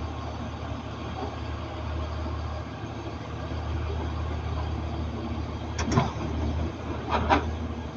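Caterpillar 336 hydraulic excavator's diesel engine running steadily while it works, with two short clanks about six and seven seconds in.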